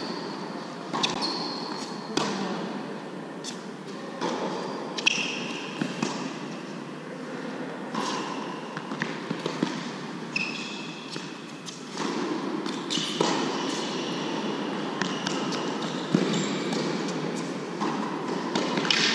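Tennis rally on an indoor hard court: sharp racket strikes and ball bounces at irregular intervals, ringing in the large hall, with short high squeaks of tennis shoes on the court surface.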